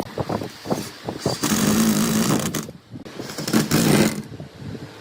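A handheld power tool cutting or working wood in two bursts of about a second each, with short knocks and clatter of wood being handled around them.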